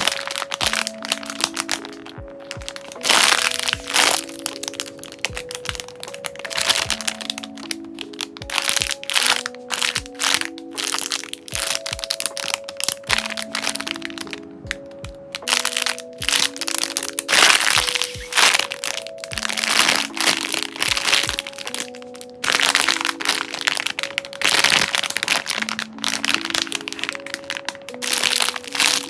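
Plastic bags of squishy toys crinkling and crackling as hands squeeze and handle them, again and again in spells of a second or two. Soft background music with a slow melody of held notes plays under it.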